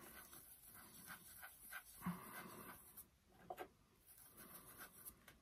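Faint scratchy rubbing of a small blender brush working ink into a paper petal, with a few soft ticks.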